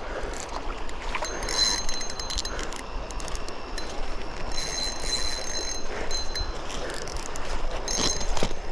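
Steady rush of a flowing river with wind noise on the microphone. A thin, high ringing tone comes and goes about three times.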